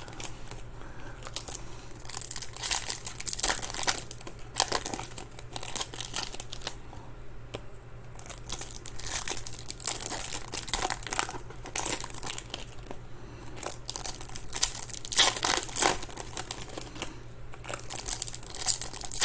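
Foil trading-card pack wrappers being torn open and crinkled in the hands, in irregular crackling bursts.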